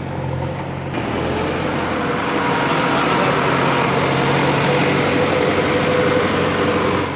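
An engine running steadily under a broad, even rush of noise, which grows louder about a second in and then holds.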